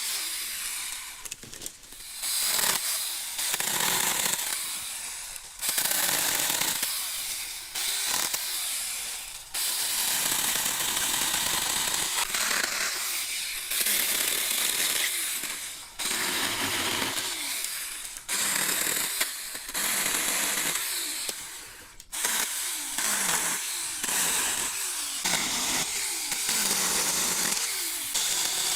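Handheld power saw cutting through cedar limbs in repeated bursts. Each cut starts abruptly and the motor pitch drops as it winds down between cuts.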